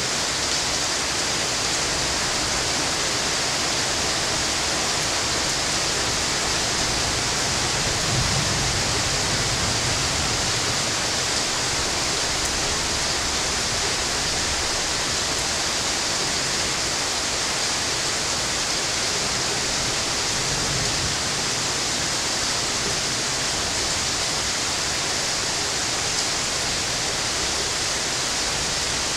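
Heavy rain falling steadily, an even hiss. A low rumble of distant thunder swells about eight seconds in, and again faintly around twenty seconds.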